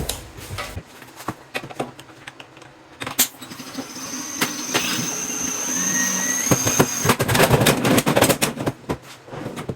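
A few scattered knocks. Then a small motor whines steadily for about four seconds, and a quick run of rattling knocks follows.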